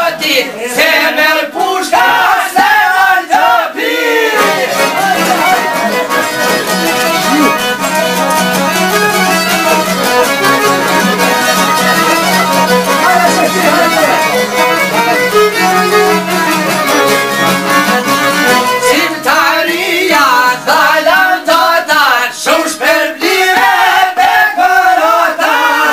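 Albanian folk song played on several long-necked plucked lutes, picked quickly over a steady drone. Men sing during the first few seconds and again from about two-thirds of the way through, with an instrumental passage between.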